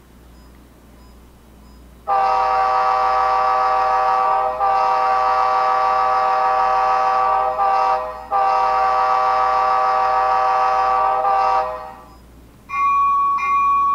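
Sound decoder of a Rapido HO scale NPCU model playing a K5LA multi-chime air horn: about two seconds in it blows long, long, short, long, the grade-crossing signal. Near the end the locomotive bell starts ringing, about two strikes a second.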